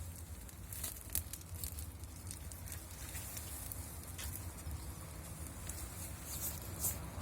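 Wood bonfire burning and crackling, with irregular sharp pops over a low rumble.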